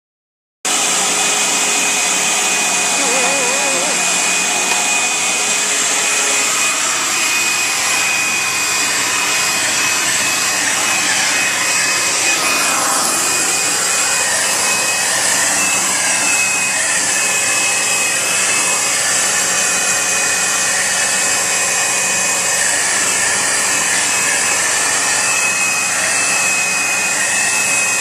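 Vacuum cleaner running steadily with a constant high whine, its hose nozzle held against a cat's fur to groom it.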